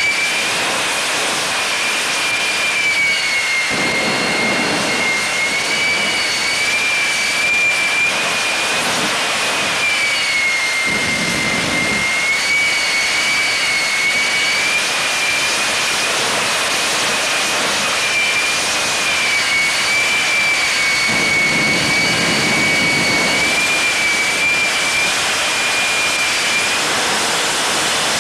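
Jet turbine engine of a jet-powered Kenworth drag-racing truck running steadily: a high whine that wavers slightly in pitch over a loud rushing hiss, swelling now and then with a deeper rumble.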